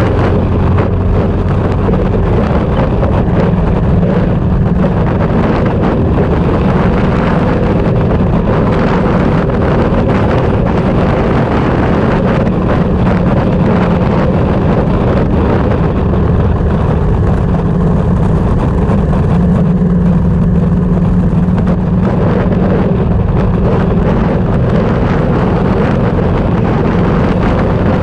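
A vehicle driving at speed on an open road, its engine a steady low drone under loud wind buffeting the microphone in a sandstorm.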